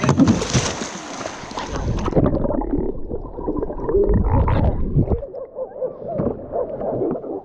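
Water splashing, then from about two seconds in a muffled, dull gurgling and churning of water, as if heard with the microphone under the surface.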